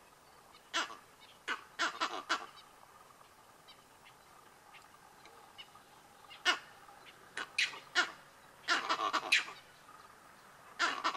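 Vervet monkeys giving alarm calls, short sharp barks in quick clusters separated by pauses, raised at lions about 100 m away.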